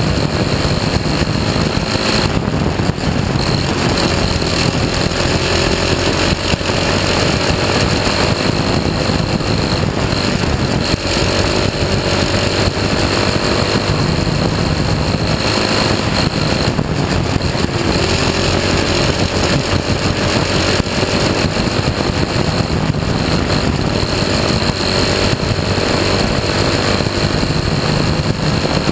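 Dirt-track race car engine heard from on board at racing speed on practice laps, running without its restrictor plate. The engine note climbs along the straights and falls away into the turns, over and over.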